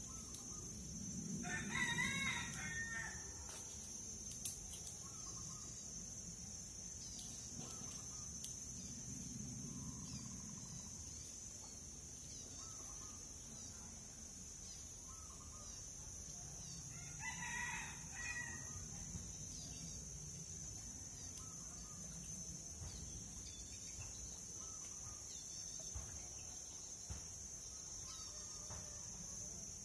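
A rooster crowing twice, once about two seconds in and again around seventeen seconds, over a steady high-pitched drone.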